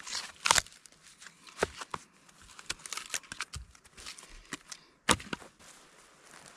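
Firewood being split on a wooden chopping block: sharp wooden knocks, the loudest about half a second in and again about five seconds in, with lighter clatters of split pieces between.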